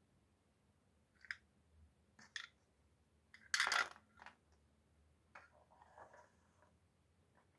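Small wooden pieces clattering as they are tipped out of a plywood drawer onto the table about three and a half seconds in, with lighter wooden clicks and knocks before and after as the drawer is handled and slid back into the toy box.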